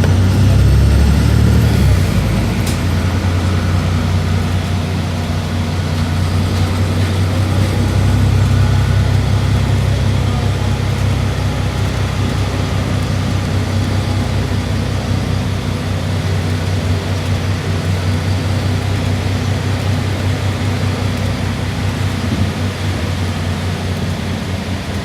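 City bus engine and drivetrain running as the bus drives off from a stop, heard from inside the passenger cabin: a steady low drone with road noise, with one brief click a few seconds in.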